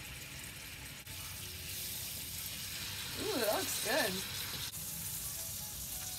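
Steak sizzling in hot oil and a soy-sauce and balsamic marinade in a frying pan, a steady hiss; the soy sauce in the marinade is catching and burning a little. About three seconds in, a brief wavering hum from a person's voice.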